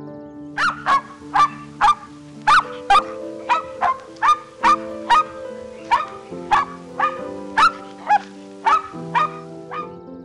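Small dog or puppy yapping in a quick, even run of about two sharp barks a second, each dropping in pitch, over soft background music.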